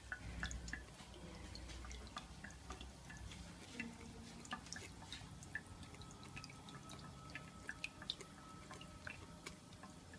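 Pet bird bathing: faint, irregular drips and small splashes of water, many quick sharp ticks scattered throughout.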